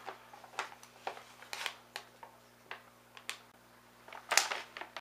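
Scattered light rustles and clicks of paper gift bags and boxes being handled and reached into, with a slightly louder rustle near the end over a faint steady hum.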